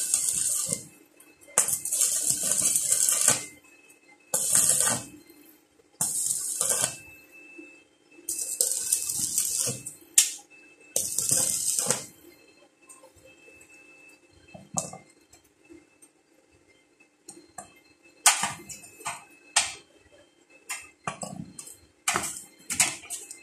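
Stick (arc) welder laying short welds on a steel frame: six separate bursts of hissing, crackling arc, each one to two seconds long, over the first twelve seconds. After that, a scatter of short metal clicks and knocks, over a faint steady hum.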